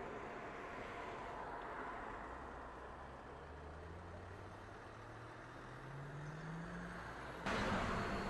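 A road vehicle moving off along a street, its low hum rising steadily in pitch over about four seconds against outdoor road noise. Near the end the sound cuts abruptly to a louder, steady noise.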